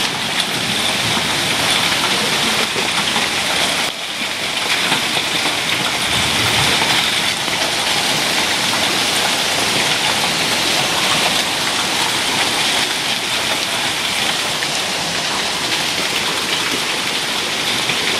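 Heavy rain pouring down onto a concrete patio and pool, a really loud, steady hiss with a brief dip about four seconds in.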